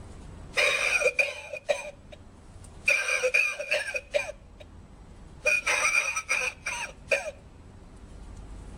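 Coughing lung-shaped novelty ashtray playing recorded coughing, in three bouts of several coughs each, a second or two apart.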